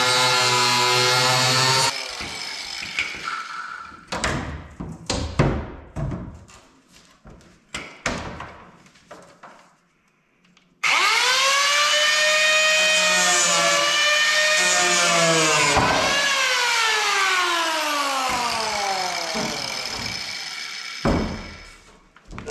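Handheld electric power tool cutting fiberglass: it runs steadily and stops about two seconds in, followed by scattered knocks and handling noises. It starts again suddenly about halfway through, runs for about five seconds, then winds down slowly with a falling whine, with a short burst near the end.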